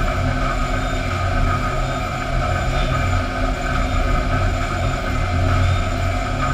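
Steady din of sawmill chain conveyors and machinery running: a continuous low rumble with a constant higher hum above it.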